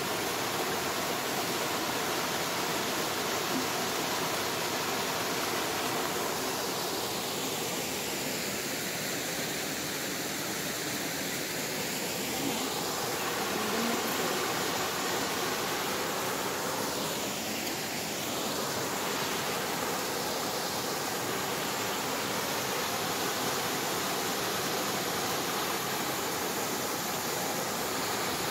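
Small waterfall pouring over boulders into a rock pool: a steady rush of falling water.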